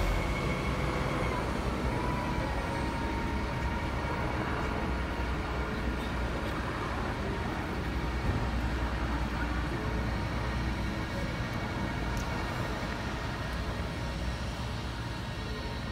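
Caterpillar 972H wheel loader's diesel engine idling: a steady, fairly quiet low rumble.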